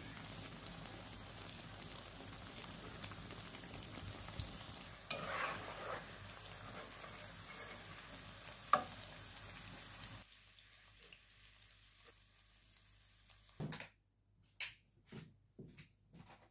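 Nunor bora cakes deep-frying in hot oil in a wok: a steady faint sizzle, with a spoon stirring and scraping in the pan about five seconds in and a sharp clink near nine seconds. The sizzle stops about ten seconds in, and a few short knocks follow near the end.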